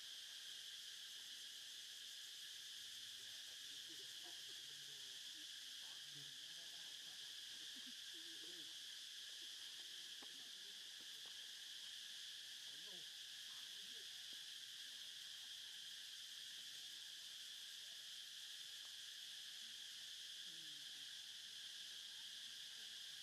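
Faint, steady high-pitched insect chorus droning without a break, with a few faint low calls or voices now and then beneath it.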